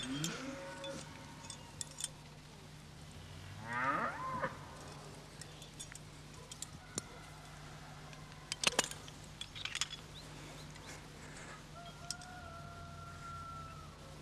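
Several drawn-out farm-animal calls: one rising near the start, one sweeping up and down about four seconds in, and one held steady near the end. A few sharp clicks come a little past the middle, over a steady low hum.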